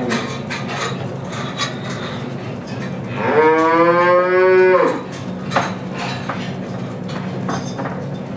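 A cow moos once, a call of under two seconds about three seconds in that rises slightly in pitch, over a steady low hum and scattered light knocks.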